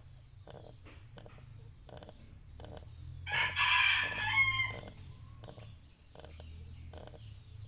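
A rooster crows once, about three seconds in, in one long call that falls away at the end. Short sharp sounds repeat about twice a second throughout.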